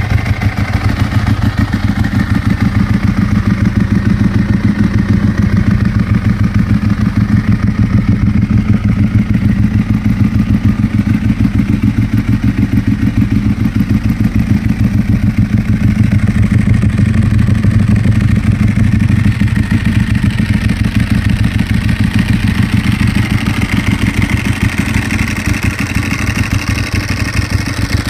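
Ducati 1098S's 1099 cc L-twin engine running steadily, its exhaust pulsing evenly throughout.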